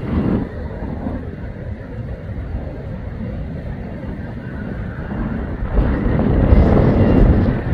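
Low rumble of a fighter jet's engines in flight, heard from the ground. It grows much louder near the end.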